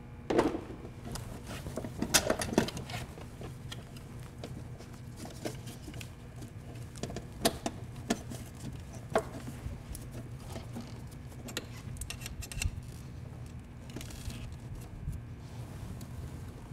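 Scattered metallic clicks and taps of wrenches working a fuel-line fitting loose from the fuel filter, with a few louder knocks, over a steady low hum.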